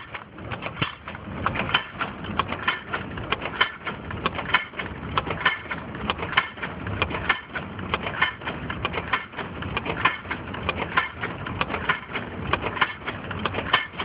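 Automatic dog-chain making machine running: a fast, continuous clatter of sharp metallic clicks, many a second, over a steady mechanical hum.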